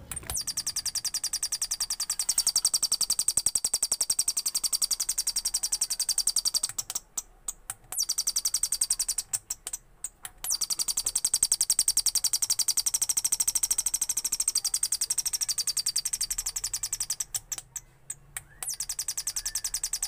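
Two-transistor (BC547/BC557) bird-sound oscillator circuit chirping through a loudspeaker: a fast, even train of electronic bird-like tweets, broken by three short pauses.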